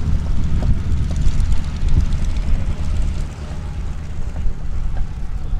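Radial piston engines of WWII propeller aircraft: a replica Aichi D3A 'Val' taxiing close by while a four-engine B-24 Liberator bomber makes its takeoff roll at full power. A steady low drone that eases a little past the middle.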